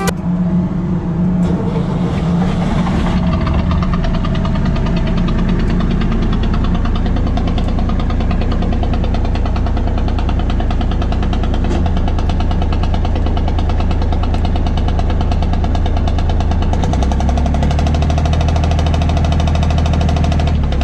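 Enclosed lifeboat's diesel engine running steadily with a fast, even knocking pulse, heard inside the closed hull. Its note shifts twice in the second half.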